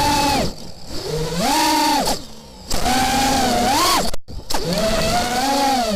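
Crusader GT2 quadcopter's motors and propellers whining. The pitch rises and falls in bursts as the throttle is punched, and drops away briefly several times when the throttle is chopped.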